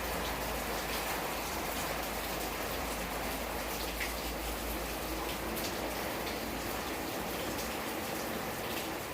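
Steady rain falling, with many small drops ticking on a surface.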